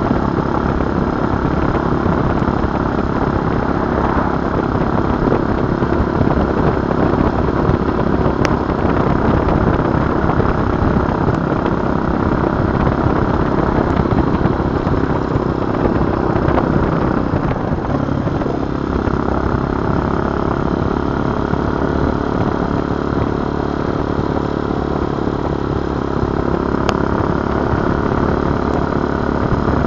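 Tao Tao TBR7 motorcycle's small single-cylinder engine running steadily under way. About two-thirds of the way through, its note drops briefly and then climbs again, as with a throttle lift or a gear change.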